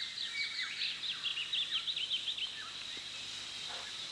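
Tropical forest ambience: a rapid string of short, high, falling chirps over a steady high-pitched drone. The chirps thin out after about two and a half seconds.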